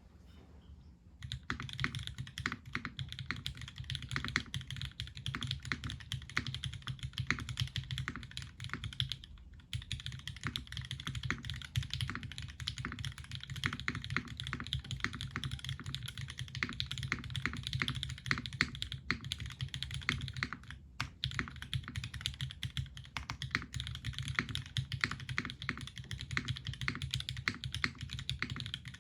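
Typing on a TGR x Singa Unikorn mechanical keyboard with Cherry MX Black Hyperglide linear switches, an aluminium full plate and GMK doubleshot ABS keycaps. A fast, steady stream of keystrokes starts about a second in, with two short pauses.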